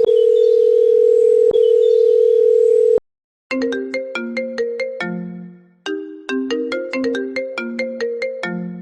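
A steady electronic tone like a phone dial tone for about three seconds, cutting off suddenly, then after a short gap a plinking mallet-style ringtone melody of short repeated notes.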